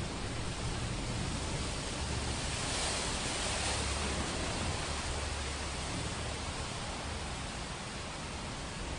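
Heavy rain, a steady dense hiss that swells briefly about three seconds in, over a low rumble of distant thunder.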